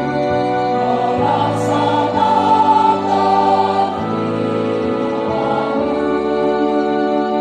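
Church choir singing a hymn in held chords that change about once a second.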